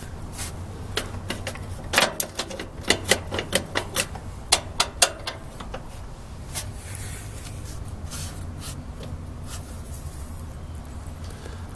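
Sharp metal clicks and clinks from a tractor's axle hub being turned and worked by hand: a quick, irregular run of them for about three seconds, then a few scattered ones.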